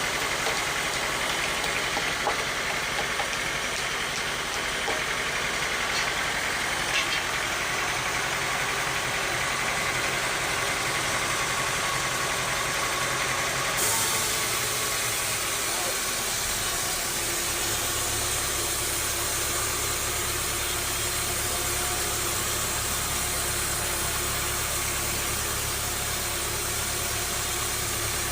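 Sawmill machinery running steadily. About halfway through a high hiss joins, and a few seconds later a deep hum sets in.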